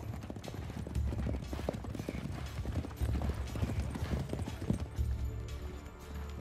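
Horses galloping on dry, stony ground: a quick, irregular drumming of hoofbeats that thins out near the end, over low background music.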